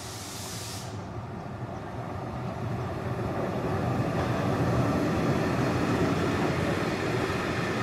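Class 242 electric locomotive hauling passenger coaches past at speed. Its running noise and the rumble of wheels on the rails grow steadily louder as it comes by, then the coaches keep rolling past.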